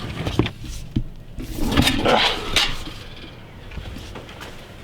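A rake being wrestled loose from where it is stuck: a few knocks, then a louder scrape about two seconds in, then quieter rubbing.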